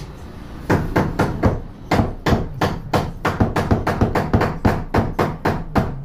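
Rapid hand-hammer blows against brickwork, about four strikes a second, starting about a second in: bricks being knocked out of a load-bearing brick wall to make an opening.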